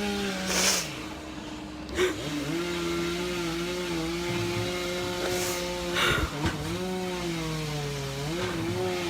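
Two-stroke chainsaw running at high revs while cutting a tree. Its note drops away briefly about a second in, then comes back and dips in pitch a few times as the saw works in the cut.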